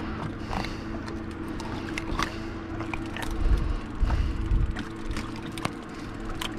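Scattered clicks and knocks of pliers and hook as a freshly caught white bullhead catfish is unhooked, over a steady low hum. Wind rumbles on the microphone from about halfway through.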